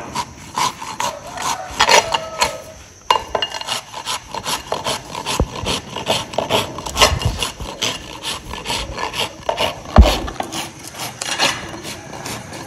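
Hoof rasp filing a horse's hoof, a quick run of rough back-and-forth scraping strokes as the hoof is levelled. A single heavy thump about ten seconds in.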